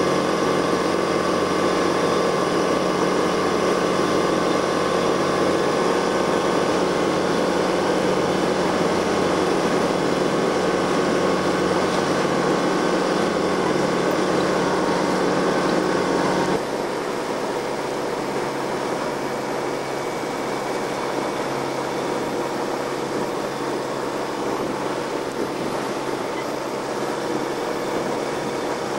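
Motorboat engine running steadily. About two-thirds of the way through it changes abruptly to a slightly quieter, lower running.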